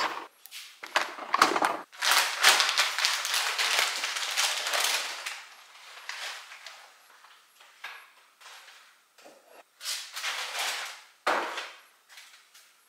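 Groceries being put away: a refrigerator door shut with a thud at the start, then plastic packaging rustling and scattered knocks and clunks of items set down on shelves.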